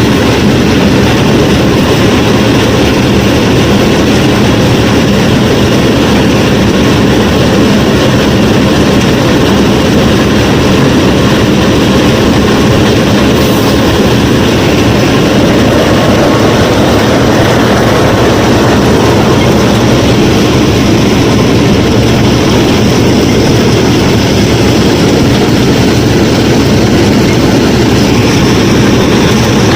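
Motor of a home-built miniature tractor-and-thresher rig running steadily, a dense, even mechanical whirr with a low hum underneath.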